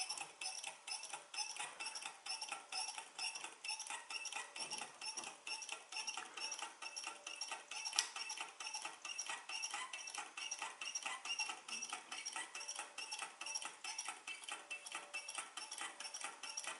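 Low-temperature-difference Stirling engine running on the heat of a glass of hot water, its brass flywheel turning and its mechanism making a steady, regular clicking.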